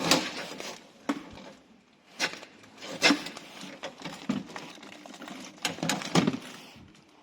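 Irregular sharp clicks and clattering knocks of metal and plastic car door-lock parts being handled and worked loose, about half a dozen over several seconds.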